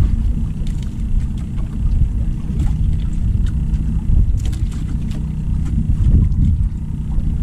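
Steady low rumble aboard a small outrigger fishing boat, with a few light clicks as the spinning rod and reel are handled.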